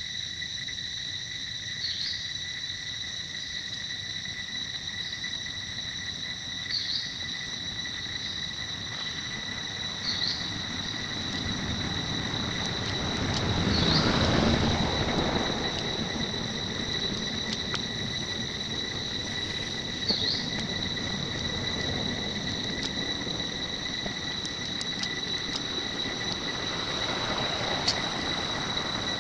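Steady high-pitched drone of forest insects, one unbroken tone with a fainter lower tone beneath it, with a short chirp every few seconds. About halfway through, a broad swell of noise rises and fades.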